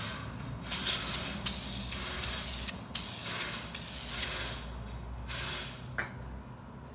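Aerosol can of matte black caliper paint spraying a second coat in a string of about six short hissing bursts, each a second or less. A single click comes near the end.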